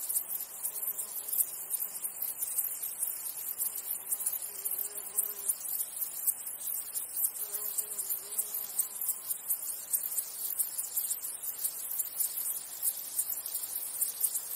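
A chorus of stridulating insects: a continuous, rapidly pulsing, high-pitched chirring.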